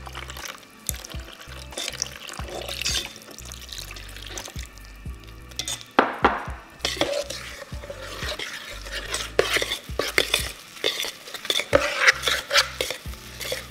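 A metal utensil stirring and scraping coconut-flour dough around a stainless steel mixing bowl, with irregular clinks of metal on metal. It gets busier and louder about halfway through as the dough comes together.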